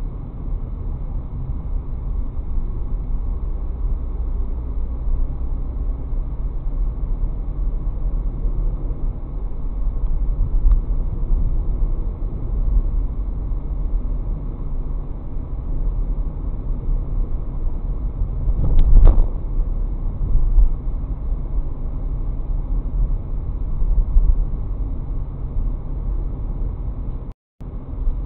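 Steady low rumble of a car's engine and tyres on the road, picked up inside the car by a dashcam. About two-thirds of the way through there is a brief louder thump, and near the end the sound cuts out for a split second.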